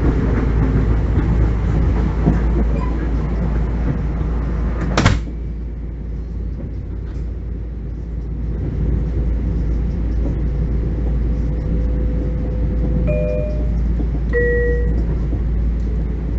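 Inside a Bombardier M7 electric train car: the steady rumble of the train running, and a sharp click about five seconds in, after which the running noise drops. Near the end comes a two-note falling chime, the car's door chime.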